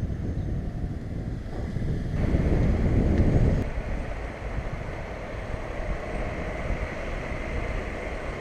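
Wind buffeting the microphone outdoors, rumbling and uneven, with a stronger gust from about two to three and a half seconds in. Under it runs a steady rushing noise.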